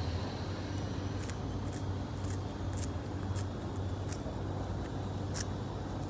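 Pet bird handling a piece of melon in its beak while eating: a scatter of short, sharp clicks, over a steady low hum.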